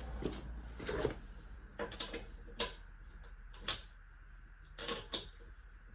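Scattered, irregular clicks and clinks of metal hand tools being handled, most likely sockets being picked through while looking for a 20 mm size.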